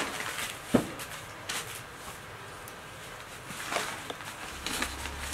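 Cotton saris rustling as they are unfolded and spread out on a floor, with one sharp knock about a second in.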